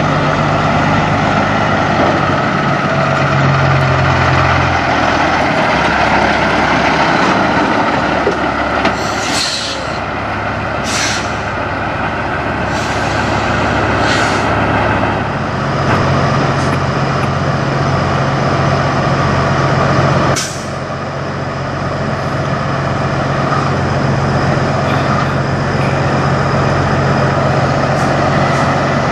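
Semi truck diesel engines running as the trucks pull through at low speed, a steady low drone that shifts pitch now and then. About five short, sharp air-brake hisses cut in between about nine and twenty-one seconds in.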